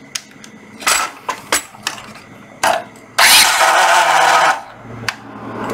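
A few clicks and knocks of handling a National EZ3511 cordless circular saw, then the saw runs for about a second and a half and winds down. It makes a noise that the owner puts down to the blade not yet being tightened.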